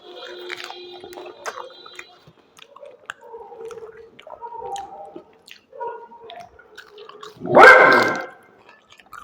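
Soft chewing and mouth sounds, then a pet dog barks loudly about seven and a half seconds in.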